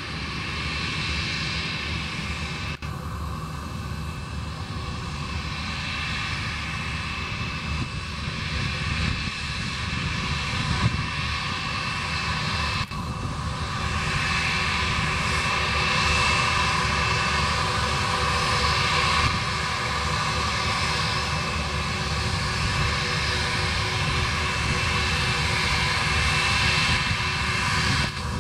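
Airbus A320's twin jet engines at taxi power as the airliner rolls toward the listener: a steady engine whine with high fan tones, growing a little louder over the second half.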